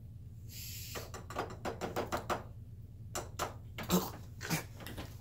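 A fork knocking and clinking against a bowl as a sauce of mayonnaise, mustard and honey is mixed: a quick run of taps about a second in and another run a couple of seconds later, with the loudest knock near the end. A short hiss comes just before the first taps.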